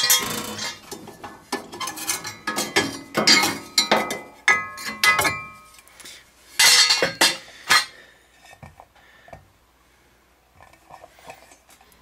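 Trane BLU furnace's sheet-metal gas burners clanking and scraping as they are pulled out of the burner compartment: a run of metallic clinks and knocks with short ringing, thinning out to faint taps over the last few seconds.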